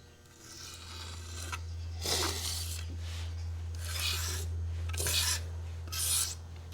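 Hand scraping and rubbing strokes on a metal gasket surface, cleaning off old paper gasket material. Four or five rasping strokes of varying length come in the second half, over a steady low hum.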